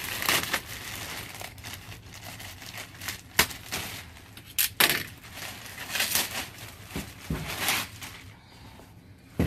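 Clear plastic packaging bag crinkling and rustling as a fabric log-carrier bag is pulled out of it and shaken open, with a few sharp crackles of the plastic, the loudest about three and a half and five seconds in.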